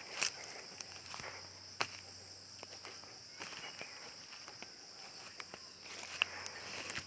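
Steady high-pitched insect drone, with scattered rustles and sharp clicks over it.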